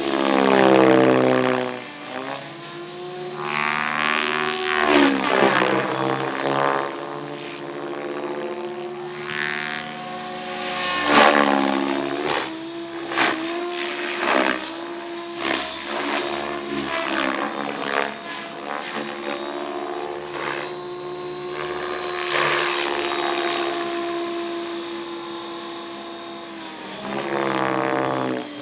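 Radio-controlled model helicopter flying, its rotor blades thrashing the air over a steady high motor whine. The pitch and loudness swell and fall repeatedly as it passes and manoeuvres.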